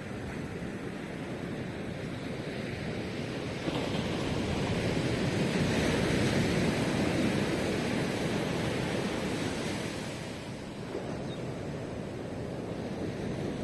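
Ocean surf. A wave breaks with a sudden rise a little over a third of the way in, swells as it washes up the shore, and dies back a few seconds later, over the steady hiss of the sea.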